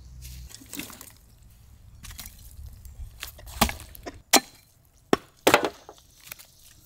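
Cleaver chopping through a whole fried goat carcass on a wooden log chopping block: a series of sharp, irregular chops, loudest in the second half.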